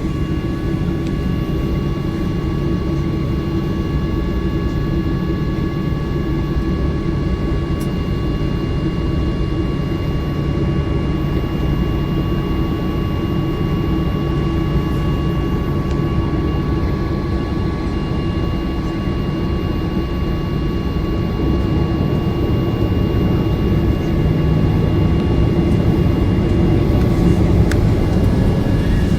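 Jet airliner's engines running steadily: a continuous low roar with a few thin, steady high whines over it, growing a little louder near the end.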